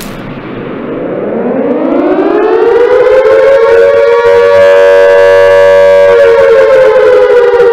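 Siren-style wail in a dance routine's backing track, played loud over a PA: it rises slowly in pitch and volume over the first few seconds, holds steady, then dips a little near the end.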